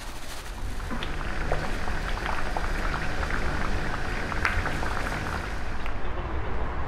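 Dry cumin seeds pouring from a bag into a plastic tub: a light, scattered patter of small ticks over a steady low hum.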